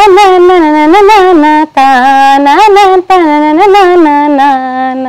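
A woman singing a Telugu film song solo, with no accompaniment: sustained notes with ornamented turns and wavers in pitch, ending on a long held note.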